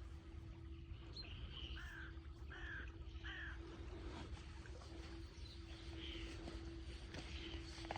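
A bird calling: three short, harsh, falling calls in quick succession about two seconds in, then a couple of fainter ones later. A steady low rumble and a faint steady hum run underneath.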